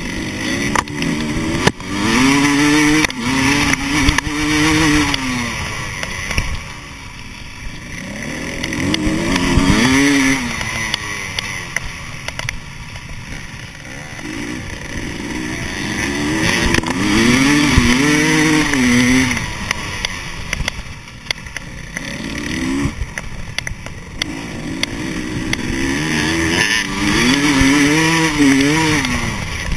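GasGas 300 EC single-cylinder two-stroke enduro engine heard from its own handlebars while riding. The pitch rises and falls over and over as the rider opens the throttle and backs off through the gears.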